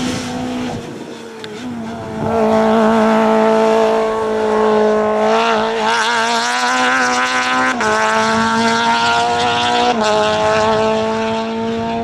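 A small hatchback hill-climb race car's engine at full throttle, held at high revs and dropping sharply in pitch at quick upshifts, twice in the second half, as the car passes and pulls away up the course.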